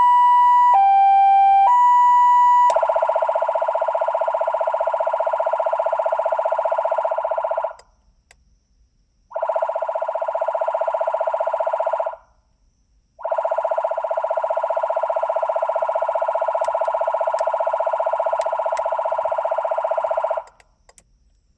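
CJB200E electronic police siren playing a two-tone hi-lo pattern that switches about once a second, then changing about three seconds in to a steady, fixed-pitch horn tone. The horn tone sounds in three long blasts with brief silent gaps between them.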